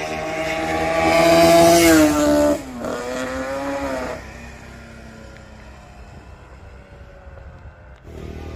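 Homemade twin-cylinder two-stroke motorcycle engine, converted from a single-cylinder Suzuki Sport ('xì bo') engine, running under power. Its pitch and loudness rise to a peak, then drop sharply about two and a half seconds in and fade away after about four seconds.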